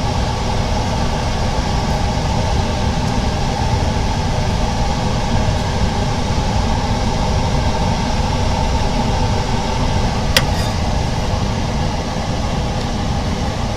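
A machine running steadily with a continuous hum, and one sharp click about ten seconds in.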